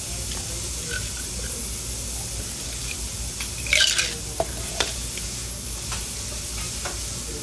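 Food sizzling as it fries, with a steady hiss, broken by a few sharp clinks and scrapes of a metal utensil, the loudest about four seconds in.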